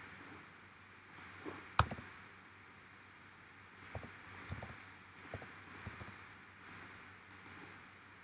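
Scattered clicks of a computer mouse and keyboard, faint over a steady hiss, with one sharper click about two seconds in and a run of lighter clicks later.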